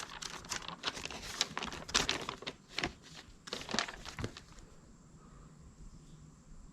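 Paper pages of a motorcycle owner's manual being leafed through, a quick run of rustles and flaps that stops about four and a half seconds in.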